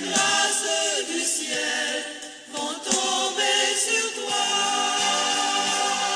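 Choir singing a Christian worship song, voices held in sustained notes.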